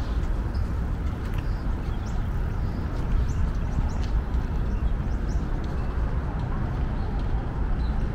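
City street ambience: a steady low rumble of traffic, with scattered short high chirps of birds above it.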